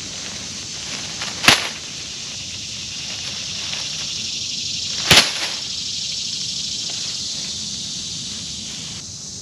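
Two sudden sharp crackles of dry pine needles, about three and a half seconds apart, as a cat and a black racer snake scuffle in the pine straw. Under them runs a steady high insect chorus.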